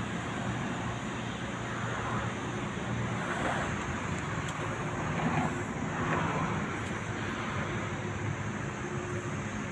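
Steady outdoor background of distant engine and traffic hum, with a few soft swells and no sharp events.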